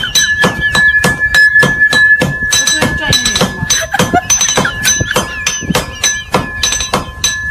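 Rapid, repeated hard knocks, several a second, as something is struck on a board on top of a suitcase, over a steady high ringing tone.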